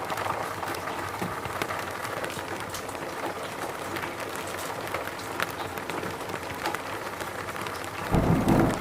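Steady rain falling, with many sharp drop ticks over an even hiss. Near the end a sudden brief low rumble rises above it.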